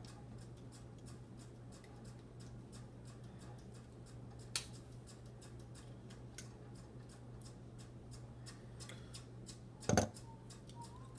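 Small plastic clicks and scrapes as a plastic stamp billboard is worked out of the bed of a 1:64 die-cast pickup truck, with a sharp click about four and a half seconds in and a louder cluster of clicks about ten seconds in, over a low steady hum.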